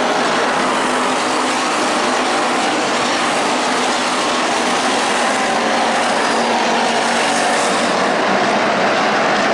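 Engines of several dirt-track stock cars running around the oval, heard from the grandstand as a loud, steady din with no single engine note standing out.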